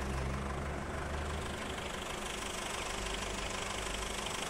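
Road vehicle engine running with a low drone that fades about a second and a half in, leaving a softer steady engine hum.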